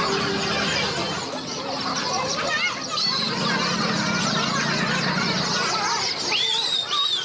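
Birds and chickens calling: a dense chatter of short high chirps, with a longer rising call near the end.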